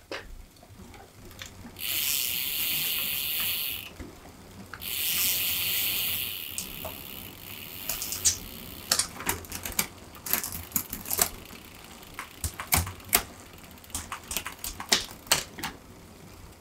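Two hissing sprays of about two seconds each from an aerosol can, then a run of many sharp, irregular clicks and taps from parts of the bicycle being handled.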